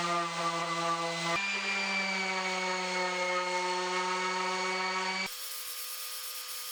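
An electric power tool's motor running steadily at a constant pitch, cut abruptly twice. A different, quieter steady machine sound follows the last cut.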